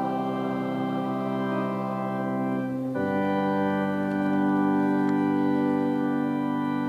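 Church organ holding long sustained chords, changing to a new chord about three seconds in.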